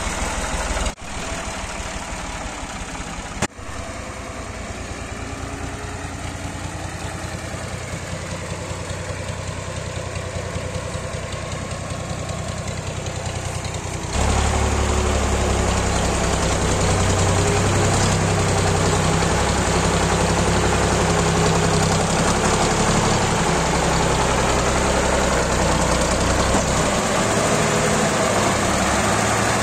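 Ford farm tractor's diesel engine running at low idle-to-slow speed, steady throughout, and louder and closer from about halfway through.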